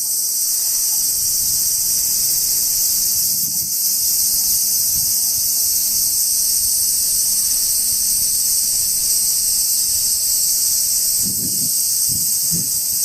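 Chorus of cicadas singing: one loud, steady, high-pitched buzz that never breaks. A few soft low thuds come near the end.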